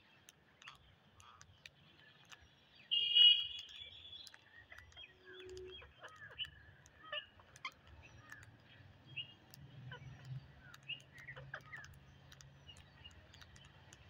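A flock of rose-ringed parakeets feeding: one loud, harsh call lasting about a second, about three seconds in, then scattered short chirps and faint clicks.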